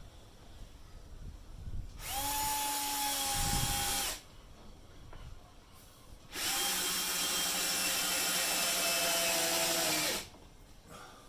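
Electric drill running in two bursts at a steady speed, a short one of about two seconds and then a longer one of about four seconds.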